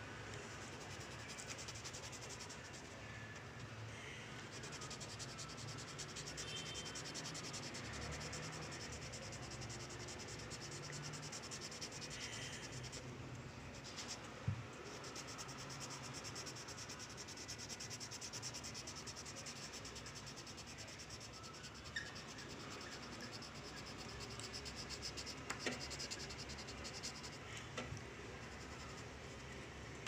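Coloured pencil scratching on paper as a drawing is shaded in, with a few light taps.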